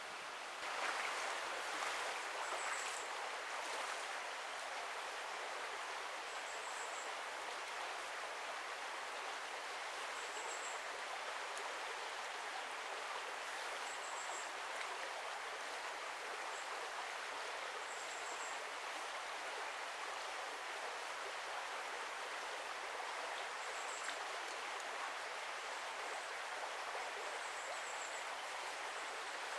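Small forest brook rushing steadily over shallows, an even hiss of running water. A faint high-pitched chirp repeats every three to four seconds above it.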